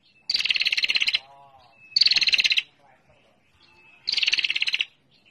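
Female prinia (prenjak) giving its rapid, dry chattering trill three times, each burst under a second long and made of fast ticking notes, with a short thin note before the bursts and fainter lower calls in the gaps.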